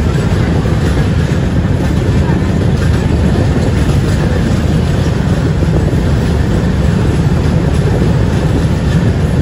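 Coromandel Superfast Express running out of a station, heard from an open coach doorway: a loud, steady rumble of the moving train.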